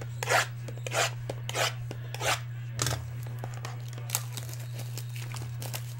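Foil-wrapped trading card packs being handled and slid against one another on a tabletop: a handful of short, crisp rustling scrapes in the first three seconds, then fainter ones, over a steady low electrical hum.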